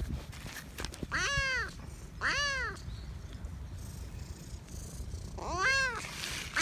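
Kitten meowing three times, each a short call that rises then falls in pitch, over a low steady rumble.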